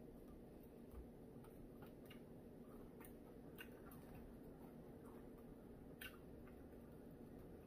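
Faint chewing and scattered mouth clicks of a person eating Southern fried chicken with his hands, over a low steady room hum.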